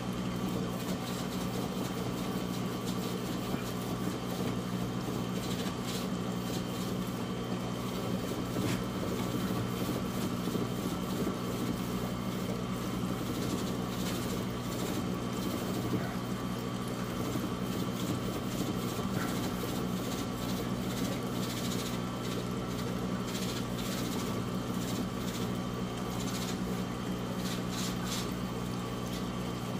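Flipper Edge Max magnetic algae cleaner scraping algae off the inside of an acrylic aquarium wall, in faint irregular strokes as it is pushed back and forth. A steady low mechanical hum runs underneath throughout.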